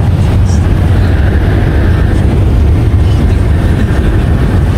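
Steady low rumble of a car driving along the road, heard inside the cabin: road and engine noise.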